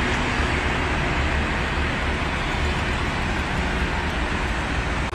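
City street traffic noise: a steady hiss of passing vehicles with a low rumble underneath.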